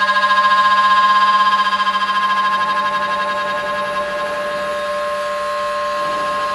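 CNC drilling machine's spindle motor running at speed with a steady, high whine, pulsing rapidly in loudness for the first couple of seconds before settling.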